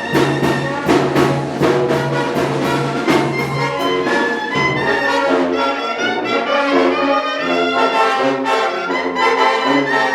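Mexican banda (brass band) playing: trumpets and trombones in harmony over a low brass bass line. A steady drum beat runs through the first half, and the bass begins moving between notes about halfway through.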